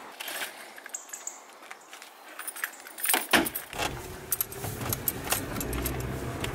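Keys jangling with scattered light clicks. From about three seconds in, a car drives, heard from inside the cabin as a steady low engine and road rumble.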